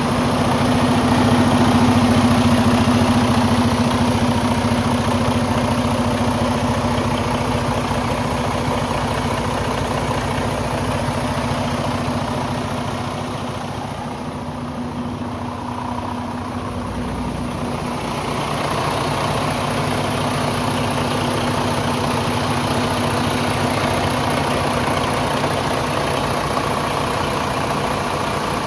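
2012 Freightliner Coronado 122 dump truck's diesel engine idling steadily, a little quieter for a few seconds midway.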